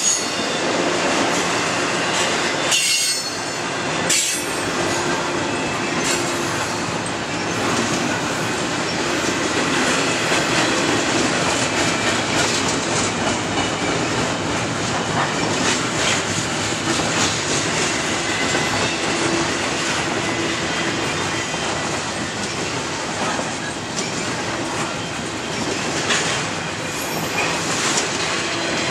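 Freight train's autorack and double-stack container well cars rolling past: a steady rumble of steel wheels on rail, with sharp clacks now and then as wheels cross rail joints.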